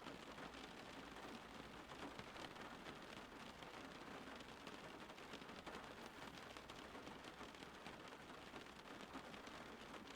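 Steady, soft rain falling, with a faint patter of many small drop ticks.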